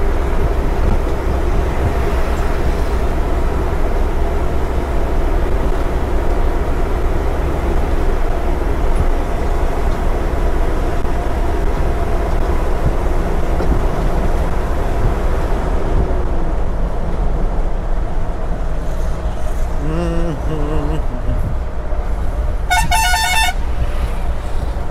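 Truck engine and road noise, a steady rumble while driving on the highway. About twenty seconds in there are two short low horn honks, and a couple of seconds later a higher, warbling horn.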